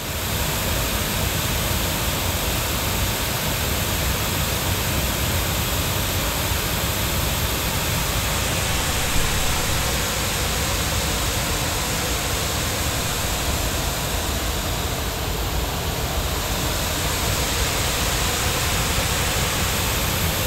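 Pink noise played through a single mono loudspeaker and picked up by a microphone moved about the room: a steady, even hiss, its treble dipping slightly about three-quarters of the way through. Coverage stays fairly even until the microphone leaves the speaker's coverage angle.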